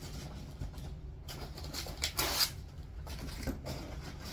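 Rustling and handling noise of items being taken out of a cardboard shipping box, with one louder brief rustle about two seconds in.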